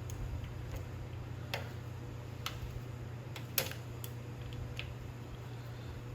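A few scattered light clicks and taps of hand tools and small parts being handled during disassembly, over a steady low hum.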